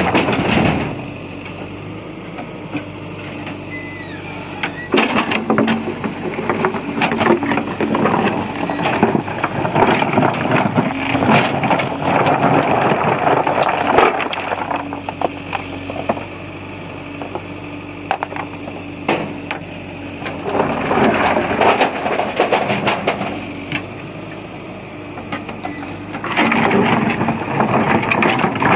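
JCB backhoe loader's diesel engine running steadily, with several long stretches of crunching, rattling noise as stone is scooped and loaded into a tipper.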